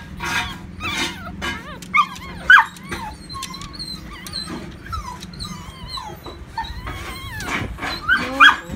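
Newborn Aspin terrier puppy squeaking and whimpering in short, high-pitched cries that waver up and down. The cries are loudest about two and a half seconds in and again near the end.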